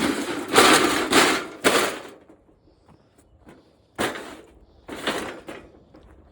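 Objects being slid and set down on a hard surface: noisy scraping and knocking for about two seconds, then two shorter scrapes about four and five seconds in.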